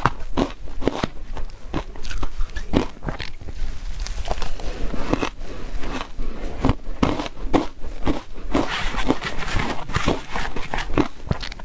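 Close-miked chewing of powder-coated soft shaved ice: a dense run of crisp, crackly crunches, several a second.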